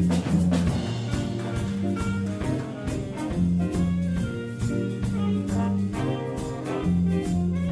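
School jazz band playing live: a horn section over bass, keyboard and drum kit, with held bass notes and a steady drum beat.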